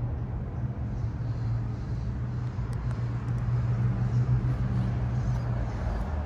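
Low, steady engine hum of a vehicle, growing louder through the middle and easing off near the end, over outdoor background noise.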